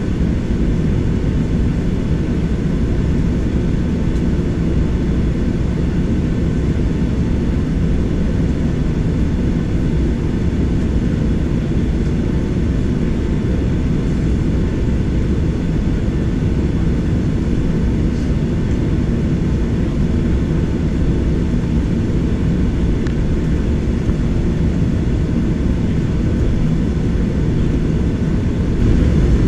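Cabin noise of a Boeing 737-800 taxiing, heard from a window seat over the wing: a steady low rumble from its CFM56-7B jet engines at taxi power, with faint steady whining tones above it.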